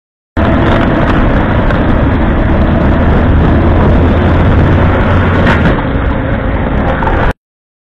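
Dashcam recording of driving in traffic: loud, steady vehicle and road rumble, heaviest in the low end, with one sharp click about five and a half seconds in. It starts and stops abruptly.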